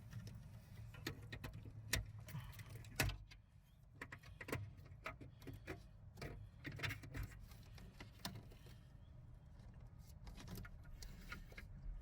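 Plastic clicks and taps of a screwdriver prying the lock on a PLC terminal block and the block being pulled free, with two sharp snaps about two and three seconds in. A low steady hum runs underneath.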